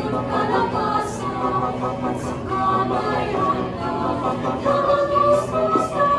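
A choir singing, many voices holding sustained notes together.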